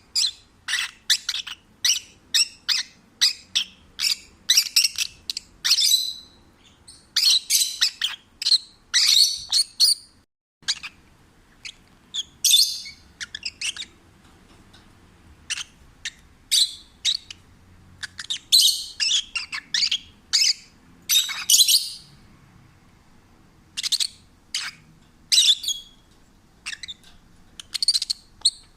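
Peach-faced lovebird chirping: rapid runs of short, high-pitched chirps and squeaks with brief pauses between the runs.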